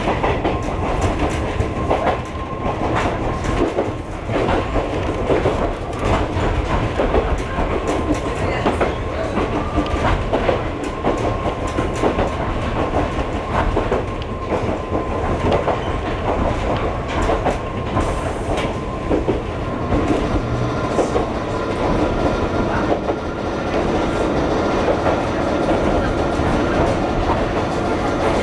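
Former Tokyo Metro Ginza Line electric railcar running on jointed single track, heard from inside the driver's cab: a steady running rumble with wheels clicking over rail joints. A thin steady whine sounds through most of it and fades away, and a lower hum comes in near the end.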